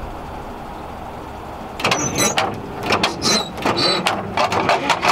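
Metal clicking and rattling from the truck's engine bay, starting suddenly about two seconds in with a few short squeaks, then settling into a fast, even ticking near the end, over a steady low rumble.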